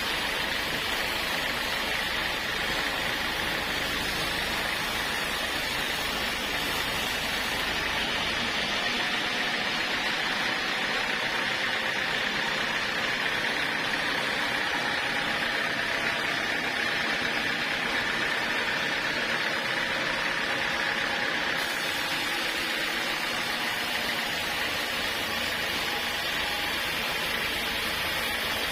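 Sawmill saw machinery running steadily: a constant mechanical noise with a high, even whine and no breaks.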